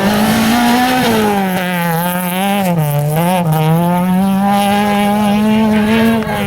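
Rally car engine running at high revs on full throttle out of a gravel corner, its pitch mostly steady with two brief dips near the middle.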